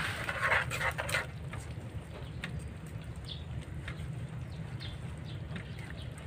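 Metal spoon stirring kangkong and string beans in a simmering pan, with scraping strokes in the first second or so, then quieter over a steady low hum.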